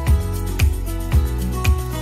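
Outro music with a steady beat, about two beats a second, over sustained chords.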